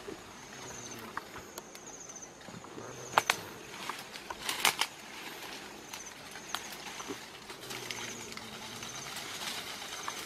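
Leaves and branches rustling, with a few sharp twig snaps and crackles about three and four and a half seconds in, as vines are pushed aside by hand. A short high chirping trill repeats about once a second in the background.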